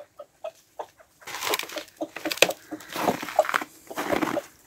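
A flock of domestic hens clucking in short, separate clucks, sparse at first and busier from about a second in.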